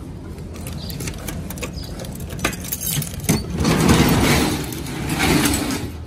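A postal delivery truck's cargo door being opened: scattered clicks and knocks, then a loud rattling rush lasting about two seconds, beginning a little past halfway.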